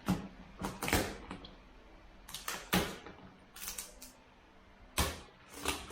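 A cardboard shipping box being pulled open by hand: a run of short, irregular rips and scrapes, about eight in six seconds.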